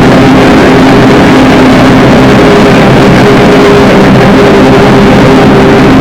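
Loud, dense wall of distorted noise with several low tones held steady underneath: a drone-noise piece at constant full volume, with no beat or break.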